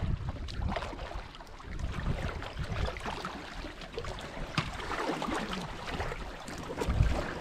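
Packraft paddle blades dipping and splashing in the water, with drips falling off the blades as the rafts paddle past close by. Wind rumbles on the microphone in gusts, strongest near the end.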